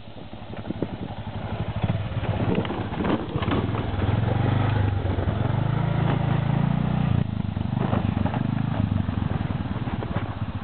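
Arctic Cat 366 quad's single-cylinder engine running at low revs as the quad rolls down a steep descent. The revs rise about four seconds in and fall back shortly after seven seconds, with a few clattering knocks around three seconds in.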